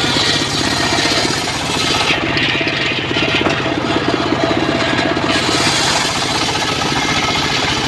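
Engine-driven portable circular sawmill running steadily with a fast, even pulsing, its blade ripping through a timber log.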